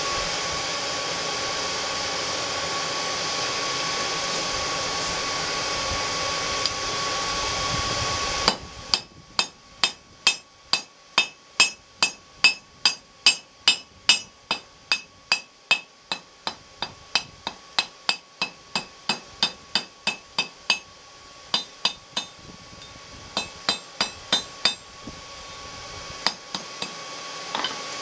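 A steady whir of the forge blower, then about eight seconds in a hand hammer starts striking hot rebar on an anvil, about two to three ringing blows a second, flattening the drawn-down end for a pot bale. After a short break come a few more blows, and the blower whir returns near the end.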